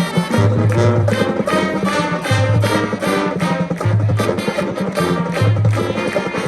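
High school marching band playing, with pitched parts held over a steady drum beat and a bass figure that repeats about every second and a half.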